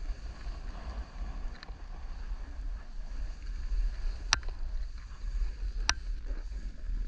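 Wind buffeting the microphone, a steady low rumble, with two sharp clicks about a second and a half apart near the middle.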